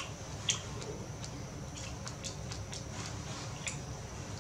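Scattered soft, wet clicks, about seven at irregular intervals, of a baby macaque chewing strawberries as they are hand-fed to it, over a faint steady high whine.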